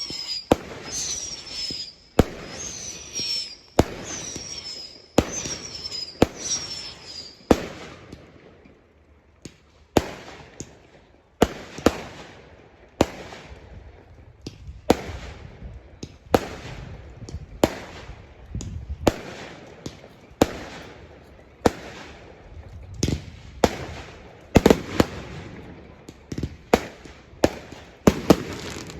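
Fireworks going off: a rapid, irregular series of sharp bangs. Through about the first seven seconds each bang comes with a short falling whistle.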